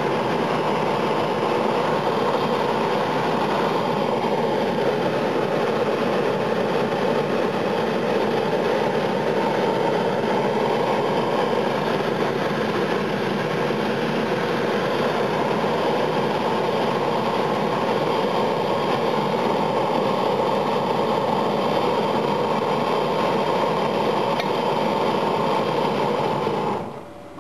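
Gas deep fryer's burner firing at full flame along its flame rail, a loud steady rush of burning gas that cuts off near the end.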